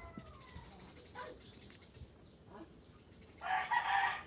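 Rooster crowing: the end of a long crow falls away in the first half-second, and a loud, harsh call comes about three and a half seconds in.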